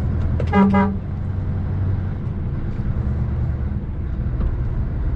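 A vehicle horn toots once, briefly, about half a second in. Under it a heavy lorry's engine drones steadily.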